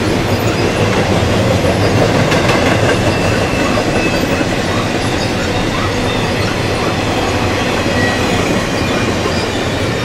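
Double-stack intermodal freight train's well cars rolling past: a loud, steady rumble of steel wheels on rail, with faint high wheel squeals here and there.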